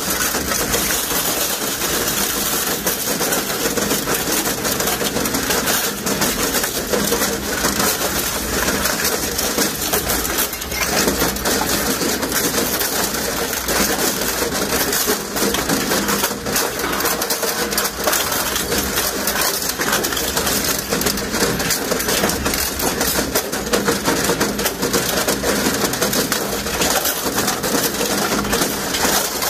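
150 HP dual-shaft electric motor running steadily on test: a constant hum over even noise, with a continuous light crackling rattle.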